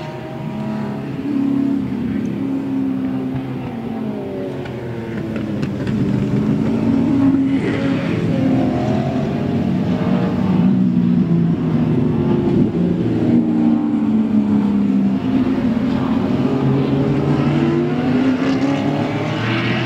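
Muscle-car racing cars driving through a corner one after another, several engines heard at once, each engine's pitch rising and falling as the cars accelerate and pass. The sound grows louder about six seconds in as the bunched pack comes through.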